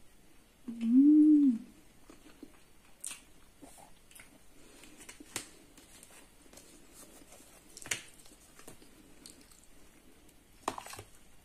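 A short closed-mouth hum ('mmm') through a mouthful of food about a second in, rising then falling in pitch. Then quiet chewing, with a few sharp clicks of a metal spoon against the plate and plastic container.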